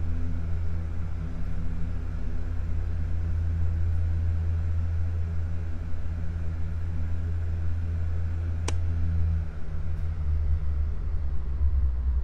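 Solaster Acapulco wall fan running with a steady low hum. A single sharp click comes a little under nine seconds in, and the hum shifts soon after.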